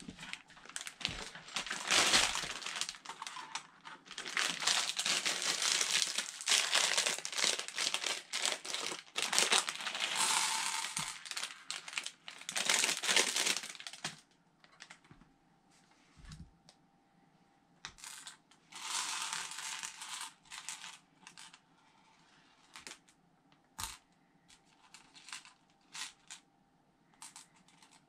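A plastic LEGO parts bag crinkling as it is handled, opened and emptied for roughly the first half. After that come scattered small clicks of loose LEGO pieces being spread and sorted by hand, with one more short rustle of plastic.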